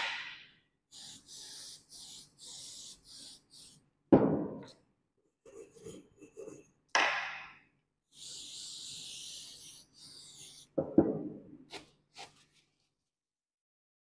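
Aerosol cleaner sprayed onto a steel magnetic-particle test piece: a run of short hissing bursts, then one longer steady spray of about two and a half seconds starting about eight seconds in. Loud knocks on the bench fall between the sprays.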